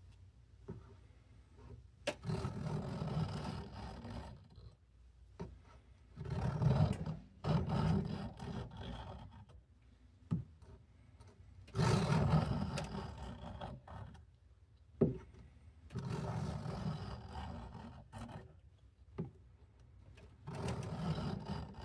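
Cattaraugus 225 Quartermaster knife blade being stroked across a coarse sharpening stone lubricated with WD-40, set at a 20-degree angle guide: five bouts of rasping strokes with a sharp click in some of the pauses between them.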